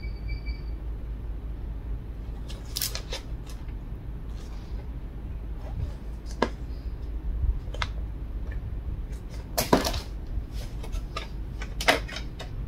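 Handling sounds: a paper instruction manual rustling, then a few scattered light clicks and knocks, the loudest a pair about ten seconds in, as hands work at the plastic hull and hatch of a Heng Long RC tank.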